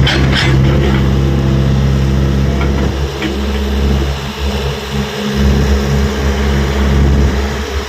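Tata Hitachi EX70 excavator's diesel engine running steadily, with a couple of sharp knocks right at the start. From about three seconds in, the engine note goes uneven, rising and dipping.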